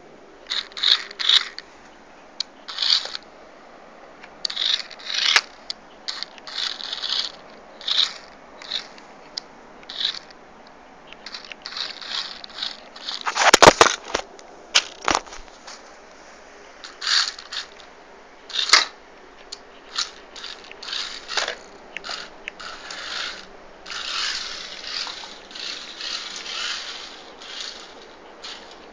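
Mini 4WD RC car driving, heard as short, irregular bursts of scraping noise, with one loud knock about halfway through.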